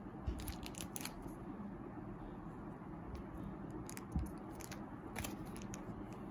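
Photocards in clear plastic sleeves and a paper card sleeve being handled by hand: scattered light crinkles, taps and clicks of plastic and card.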